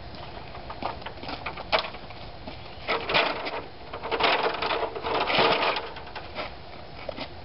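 A tall stepladder being carried in and set up: a knock about two seconds in, then three bursts of rattling and scraping between about three and six seconds in.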